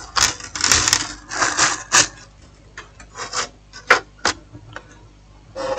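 Handling noise: a hand sliding and scraping over an opened phone and the paper on the bench in several short bursts, with a few sharp clicks about two and four seconds in.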